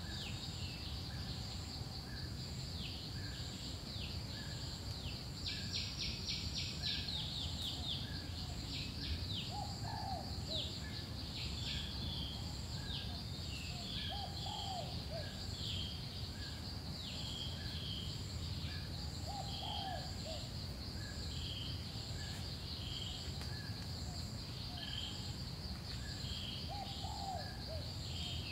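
Forest birds and insects: a steady high insect buzz and an insect chirping in even pulses, with birds calling over them in short falling chirps, a quick rattling series about six seconds in, and lower whistled phrases every few seconds. A low steady rumble lies underneath.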